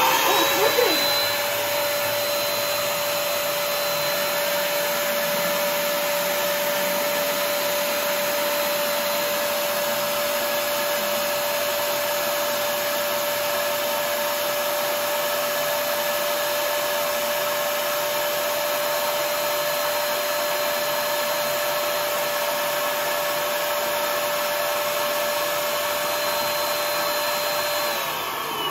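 Electric balloon pump's motor and fan spinning up as it is switched on, then running steadily with an even whine and a rush of air as it inflates a balloon. Its pitch dips briefly near the end.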